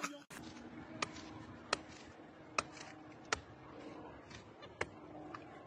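About five sharp clicks or taps at uneven intervals over a faint, low steady hum.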